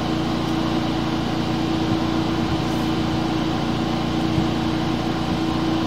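An engine running steadily at constant speed, giving an even droning hum with no change in pitch.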